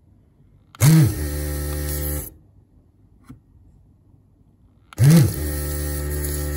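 A desoldering iron's vacuum pump switched on twice, each time for about a second and a half: a brief whine as it starts, then a steady buzz as it sucks molten solder out of circuit-board through-holes.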